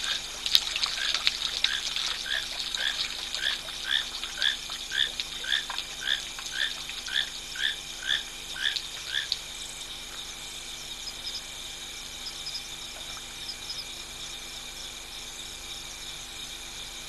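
A frog calling over and over, about twice a second, which stops about nine seconds in, over a steady background chorus of crickets and insects.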